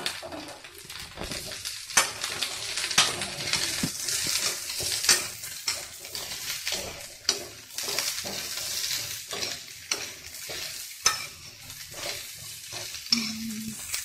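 Chopped mixed vegetables sizzling in hot oil in a kadhai, freshly added over softened onions, while a metal spatula stirs them, with frequent sharp clacks and scrapes against the pan.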